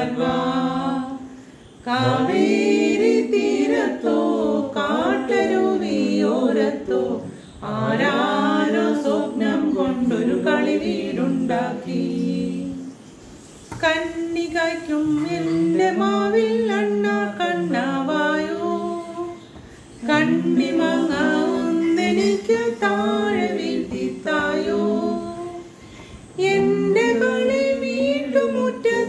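A small group of voices singing a song together unaccompanied, in phrases of several seconds with short breaks between them.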